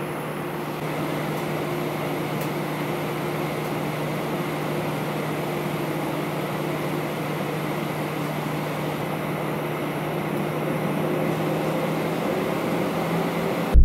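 Steady cabin noise inside an Airbus A320-214 on the ground before takeoff: the even hum of the engines at idle and the air conditioning, with a low steady drone underneath.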